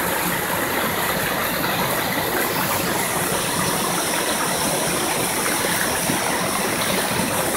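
Mountain stream rushing steadily over rocks and a small cascade.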